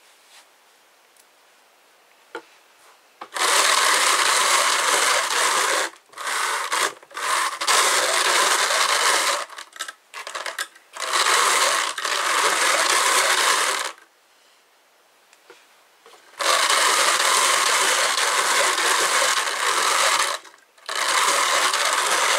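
Hand-cranked drum carder turning, its toothed carding drums whirring and rasping as wool fibre is fed through. It runs in several bursts of one to four seconds with short stops between, starting about three seconds in.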